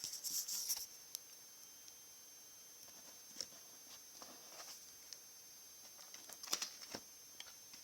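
Faint handling noise from the opened tablet's parts: a brief rustle at the start, then scattered small clicks and taps as pieces are moved.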